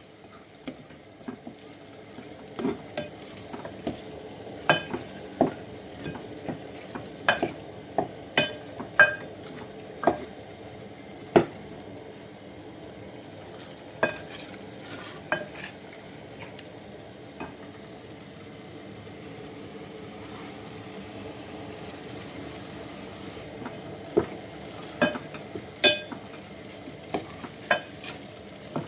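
A spoon stirring food frying in a pot, with a steady sizzle and irregular sharp clicks of the spoon striking the pot.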